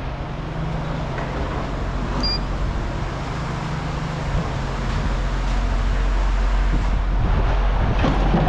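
Engine running steadily with a low, even rumble, like a vehicle or yard machine idling.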